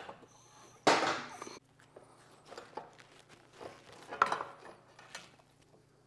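Metal clanks and knocks as the rear axle is worked out through the wheel hub and swingarm: one loud ringing clank about a second in and another about four seconds in, with lighter knocks between.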